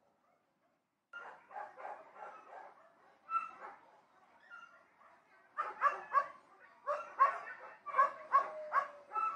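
Dogs barking: after a second of quiet, a run of quick barks starts up, and a louder flurry of barks follows from about halfway through.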